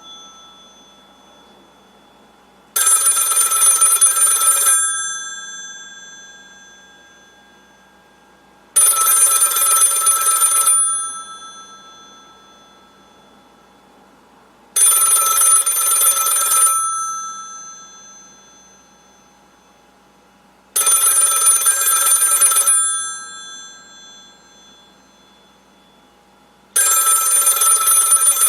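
Old telephone's bell ringing in a regular pattern: rings of about two seconds every six seconds, five times, each ending in a fading metallic ring-off.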